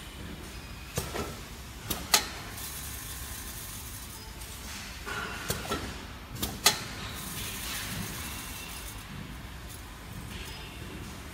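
Seed counting machine running: a steady low hum from its vibratory feeder, with sharp clicks every few seconds, loudest about 2 seconds in and again about 7 seconds in.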